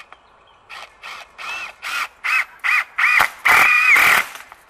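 Cordless drill driving a 2.5-inch self-tapping screw through a pressure-treated board into a steel kennel bar: a run of short trigger pulses, each whining up and down in pitch and getting louder, then one longer run near the end as the screw sinks in.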